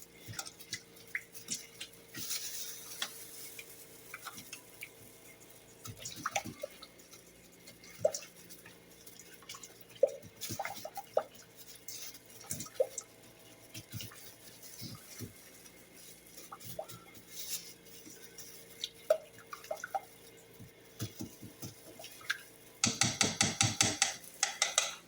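A utensil stirring a thick ketchup, brown sugar and onion soup mix sauce in a bowl: scattered clinks and scrapes against the bowl, then a quick burst of about six strokes a second near the end.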